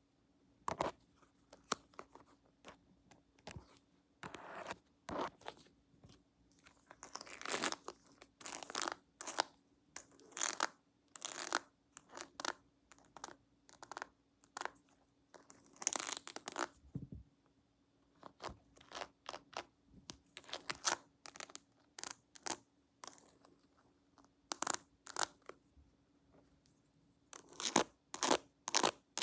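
Close-miked ASMR handling sounds: irregular short crackly, scratchy strokes, sometimes in quick clusters, from pretend haircut tools and hands working near the microphone, over a faint steady low hum.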